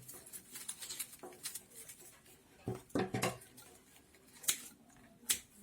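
Scissors snipping through palm strips, a series of separate short cuts at uneven intervals.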